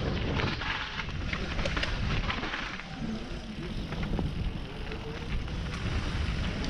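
Wind buffeting a helmet-mounted microphone during a fast downhill run on a dirt trail: a steady low rumble, tyres crunching over the loose dirt, and many sharp rattles and clacks from the bike over the bumps.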